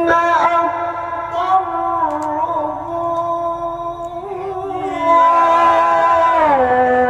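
Male Quran reciter's voice sustaining a long melismatic note in tilawah style, with small ornamental turns, stepping and gliding down in pitch near the end.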